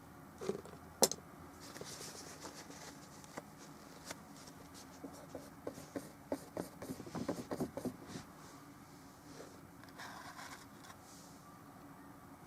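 Oil paintbrush rubbing, dabbing and scraping on a small painting, with a sharp click about a second in and a run of quick little taps and strokes in the middle.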